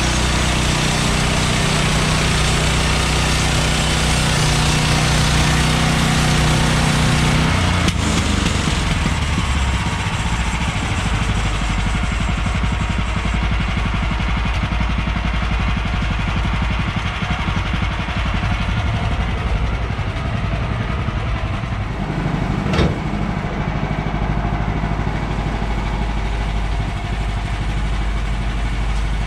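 Small gas engine of a manual portable band sawmill running steadily. Its tone changes about eight seconds in, and there is a single sharp knock about 23 seconds in.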